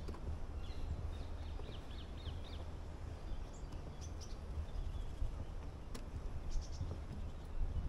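Small woodland songbirds chirping and singing in short, high bursts, over a steady low rumble, with one sharp click about six seconds in.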